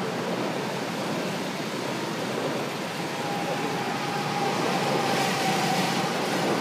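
Go-karts running on a track under a steady rushing noise; from about three seconds in one kart's engine note comes through, falling slightly in pitch as it passes.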